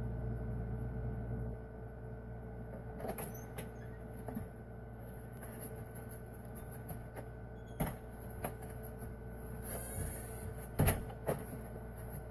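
A room door being opened, then a few sharp knocks and thumps as someone steps in and moves about, over a steady hum.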